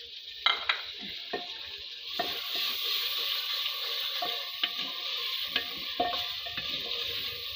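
Spiced onion-tomato masala sizzling in a clay handi just after a little water is added, while a spoon stirs it and knocks against the pot. A few sharp knocks come first; the sizzling hiss swells about two seconds in and holds, with more spoon knocks through it.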